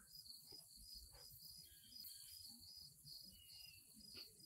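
Near silence, with only a faint, steady insect trill.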